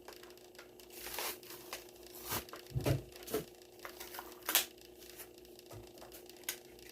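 A toy car's package being torn open by hand: paper-and-plastic tearing and crinkling with scattered sharp snaps, loudest about three seconds in and again a little later.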